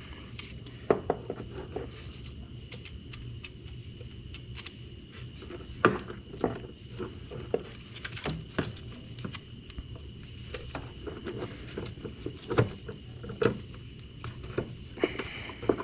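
Irregular clicks and light knocks of hand tools and parts being handled in a car's engine bay while the lower radiator hose is worked loose, over a steady low hum.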